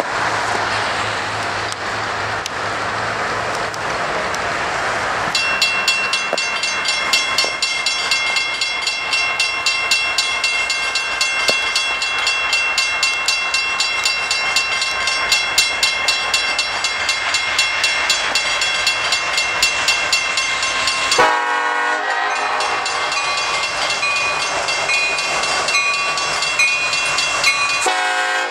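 Approaching diesel locomotives rumbling. From about five seconds in, a railroad crossing bell rings rapidly, about three strikes a second, as the train nears.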